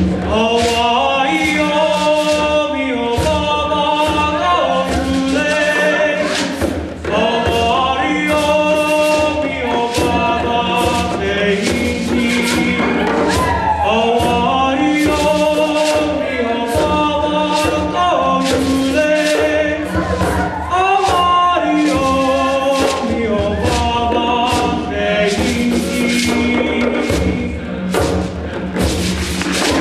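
Mixed choir singing in harmony with a male soloist at a microphone, over congas and other hand drums beating a steady rhythm.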